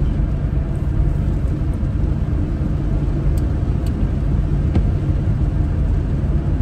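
Steady engine and road rumble inside the cabin of a moving car.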